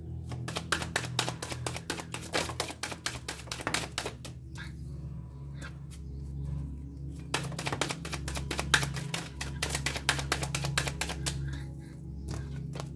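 A deck of oracle cards being shuffled by hand, the cards slapping and riffling against each other in rapid clicking runs. There are two spells of shuffling, with a pause of a couple of seconds between them, the second starting about seven seconds in.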